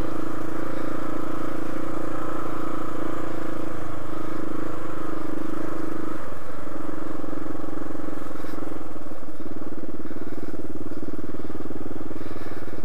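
Single-cylinder dual-sport motorcycle engine running steadily along a dirt trail. The engine note shifts about six seconds in and again a few seconds later, as the throttle changes.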